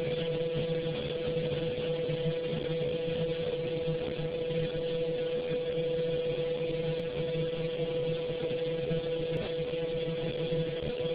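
Dental CNC milling machine running steadily, its spindle driving a thin end mill through a white milling disc, with a constant tone over a hiss.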